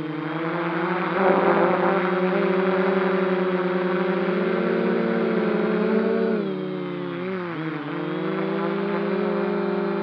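Quadcopter drone's motors and propellers whining steadily, with a short rush of noise about a second in. About seven seconds in the whine drops in pitch as the motors slow, then climbs back.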